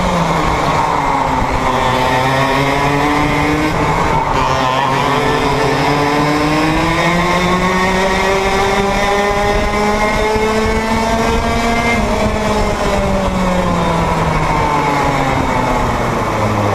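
Onboard sound of a kart's Yamaha KT100 two-stroke engine at racing revs. The engine dips under braking about four seconds in, climbs steadily down a long straight, drops off again around twelve seconds in and picks up near the end.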